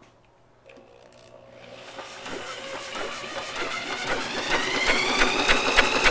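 Clinton small engine being cranked over by its starter. It starts about a second and a half in with a whine that rises in pitch and then holds steady, with regular ticking about four times a second. The engine cranks without firing because it has no spark.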